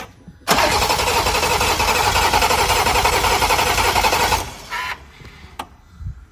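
BMW B58 inline-six cranked over by its starter for about four seconds, turning over evenly without firing because the coil packs and injectors are disconnected: a dry crank to push oil through the newly fitted turbo. The cranking starts about half a second in and stops abruptly, followed by a couple of faint clicks.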